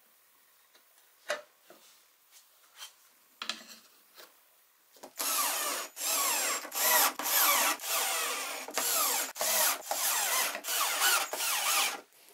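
A few light clicks and knocks as a thin wooden back panel is handled. About five seconds in, a cordless drill/driver starts driving small screws through the panel into a pine frame, running in a string of short bursts with brief stops.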